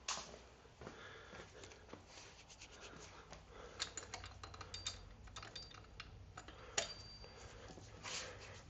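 Irregular small metallic clicks and light taps, a few with a brief ringing tone, from hand tools working on a motorcycle's rear axle and chain adjusters while the chain tension is set.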